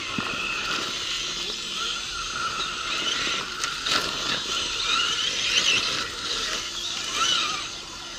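Small electric motors and gear trains of RC crawler trucks whining, rising and falling in pitch with the throttle as they crawl over terrain.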